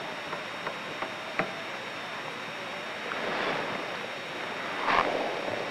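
Steady hiss of room tone, with a few faint clicks in the first second and a half and a brief louder sound about five seconds in.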